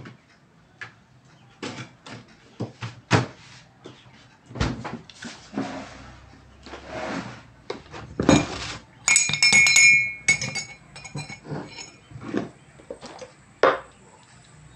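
Metal spoon clinking against a ceramic mug, with a quick run of ringing clinks about nine seconds in as the drink is stirred, among scattered knocks and taps of the mug and a thermos flask being handled on the table.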